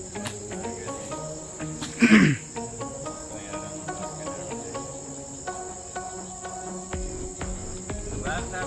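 Crickets chirping in a steady, high-pitched chorus, with one brief loud burst about two seconds in.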